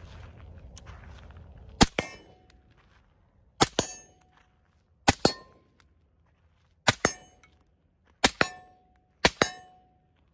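Six suppressed shots from a BattleArms Authority Elite rifle at uneven intervals of one to two seconds, each followed a split second later by the clang of the bullet striking a steel target, which rings briefly. A low steady rumble of wind or movement runs for the first two seconds before the first shot.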